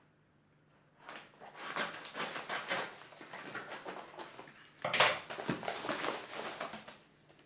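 Packaging rustling and crinkling as a parcel is opened by hand, with a sharper, louder crackle about five seconds in.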